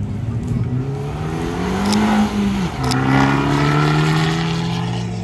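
Abarth 595 hatchback's turbocharged four-cylinder accelerating away hard, revs climbing. The revs drop at a quick gear change about two and a half seconds in, then climb again, with two sharp cracks around the shift.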